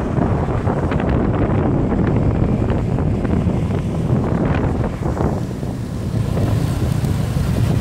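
Wind buffeting the microphone on a moving motor scooter, with the scooter's engine and road noise underneath.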